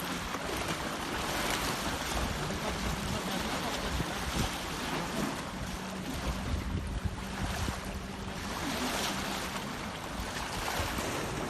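Wind buffeting the microphone over the wash of sea waves, with a faint steady low hum through the middle.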